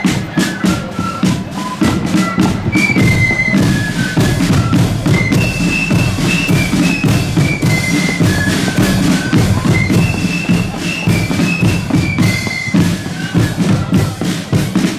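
Marching flute band playing a tune: flutes carry a high, stepping melody, with the phrase repeated, over steady side-drum and bass-drum beats.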